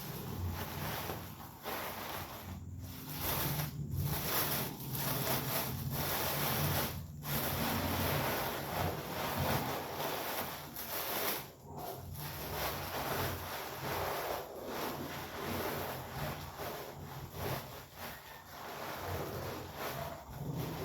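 Sheets of red and yellow cellophane rustling and crinkling as they are handled, a continuous rustle broken by a few short pauses.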